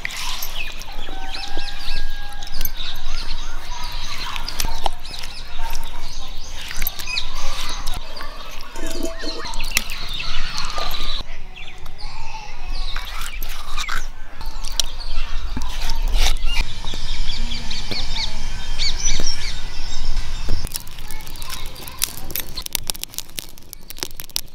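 Stone grinder (attukal) in use: the cylindrical stone roller is turned and knocked around the stone mortar, grinding a wet spice paste, with repeated scraping and knocking. Birds and chickens chirp in the background.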